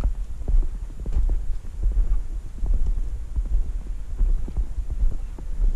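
Footsteps in snow and knocks from a hand-held camera carried while walking, over a heavy, uneven low rumble of handling and wind on the microphone.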